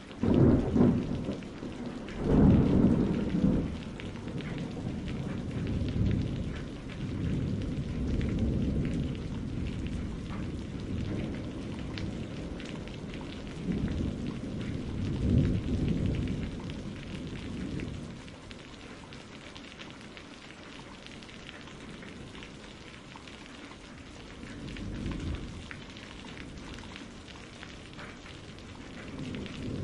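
Steady rain hiss with low rolls of thunder that swell up and fade away several times, the loudest a few seconds in.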